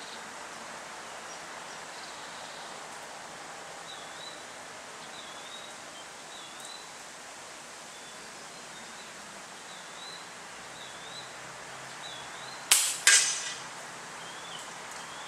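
A .22 FX Bobcat PCP air rifle fires once near the end: a sharp crack, followed about a third of a second later by a second sharp smack as the pellet strikes the wooden target board. A bird chirps repeatedly in the background.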